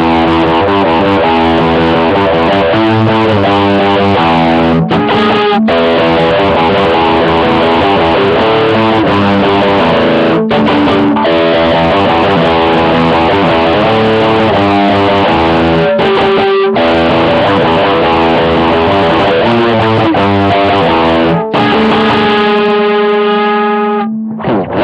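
Electric guitar with a distorted tone, from a Roland GR-55 modelling a Gibson Les Paul Standard into a Roland JC-120 amp with a RAT distortion pedal, playing a chord riff with a few brief stops. Near the end a single chord is held and rings out before cutting off.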